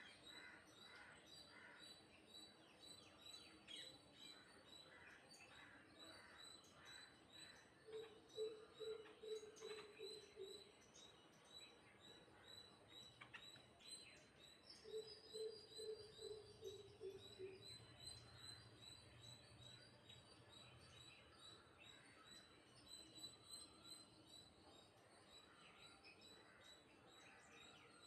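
Faint bird calls: two runs of low, evenly repeated notes, about eight notes each and several seconds apart, sinking slightly in pitch, with softer higher chirping around them.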